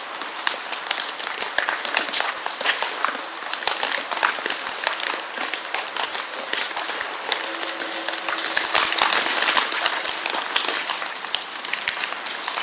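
Steady rain falling as a dense hiss of countless small drop impacts, a little louder for a couple of seconds past the middle.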